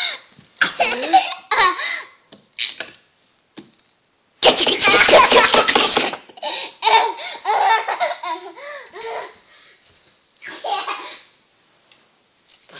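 Toddler laughing in short repeated bursts, with a loud rushing noise lasting about a second and a half a little over four seconds in.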